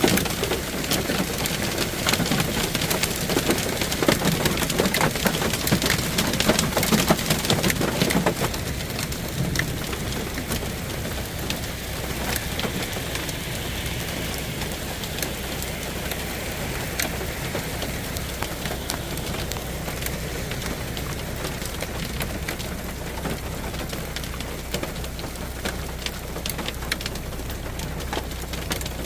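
Rain falling, with many sharp drop hits on hard surfaces. It is heavier for the first eight seconds or so, then eases to a steadier hiss.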